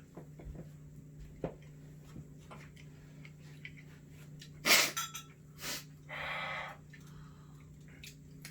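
A man sniffing and breathing hard through a running nose, brought on by very spicy noodles. There is one sharp, loud sniff a little before the middle, a fainter one about a second later, then a half-second hissing breath, all over a steady low hum.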